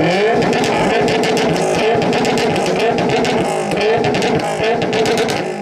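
Subaru WRX STI's turbocharged flat-four exhaust revved hard and held at high rpm for about five seconds, then the revs drop near the end.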